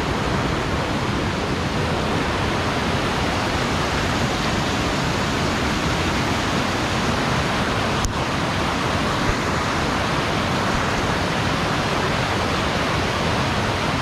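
Steady roar of a large waterfall crashing onto rocks close by, with one brief faint click about eight seconds in.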